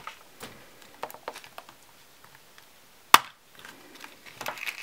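Plastic gashapon capsule being handled and pried open: faint scattered clicks of plastic, then one sharp snap a little past three seconds in as the two halves come apart, followed by a short crinkle of the plastic bag inside.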